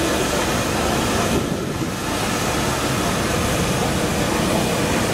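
Steam traction engines venting steam: a loud, steady hiss that dips briefly about a second and a half in.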